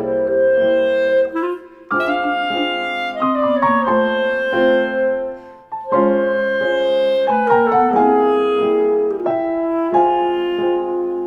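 Background music: a melody on a woodwind instrument over piano, with quick changing notes and two brief breaks.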